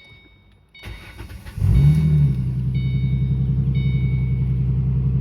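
Ford 4.0 V6 engine of a 2008 Mustang cranked by the starter about a second in, catching with a brief rev flare and settling to a steady idle, while a dashboard warning chime beeps about once a second. The idle carries the ticking that has remained since a stripped spark-plug hole was thread-repaired; the owner suspects a hole in the exhaust, a bad PCV valve or something worse.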